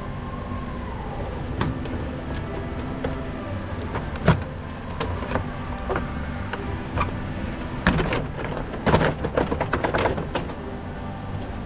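Scattered knocks and clatter of a fan shroud and engine cooling fan being worked loose and lifted out of the engine bay, with a quick run of knocks about eight to ten seconds in, over a steady background hum.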